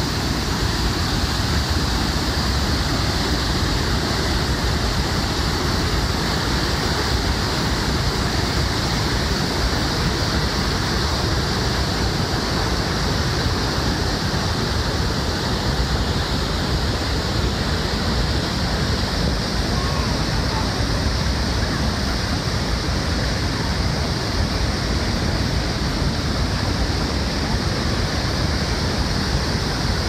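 Large waterfall: a loud, steady rush of falling water that stays at one level throughout.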